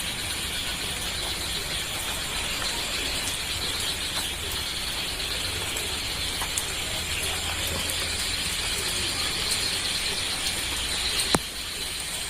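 Steady high-pitched buzzing, chirring background sound, with a single sharp click about eleven seconds in.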